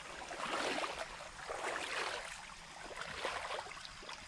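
A person wading through a shallow brook in shoes: several irregular sloshing, splashing steps in the water.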